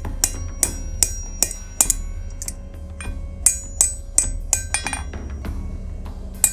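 Hand hammer striking hot mild steel on an anvil horn at an uneven pace of about two blows a second, each blow ringing briefly, with a short pause near the end. The blows are rounding a forged cone-shaped candle socket.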